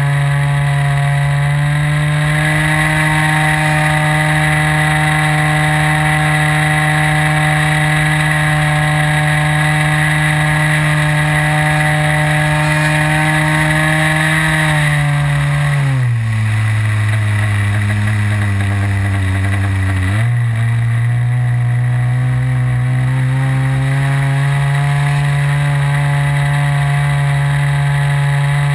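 O.S. 55 AX two-stroke glow engine on a model aerobatic biplane running at high throttle, heard from onboard. About halfway through, the pitch drops as the throttle is pulled back for around five seconds, then rises again to steady power.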